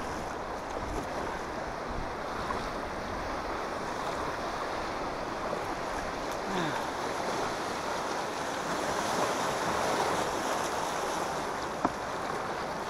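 Choppy river rapids rushing and splashing around a kayak hull as a steady wash of water noise, with wind buffeting the microphone. A single sharp knock near the end.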